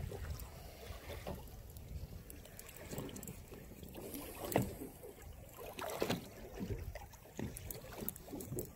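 Water lapping and slapping against the side of a small boat in irregular splashes, the loudest about halfway through.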